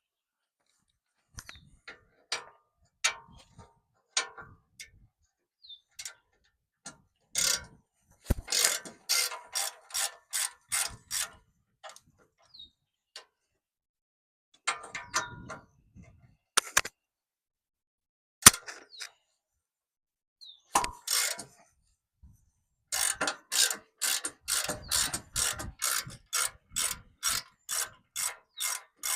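Hand ratchet wrench clicking as it turns bolts, in quick runs of about four clicks a second, with scattered single clicks and a few knocks of tools or metal parts between.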